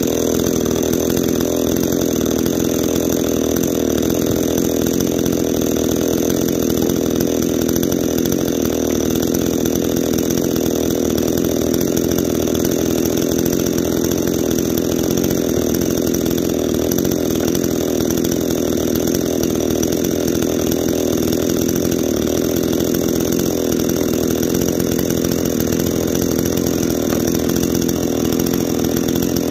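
Neo-tec NCS5800 58cc two-stroke chainsaw running at a steady speed without a break.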